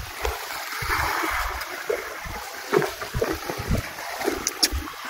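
Sea water lapping and splashing against the hull of an inflatable boat, with irregular low knocks and a brief wash of noise about a second in.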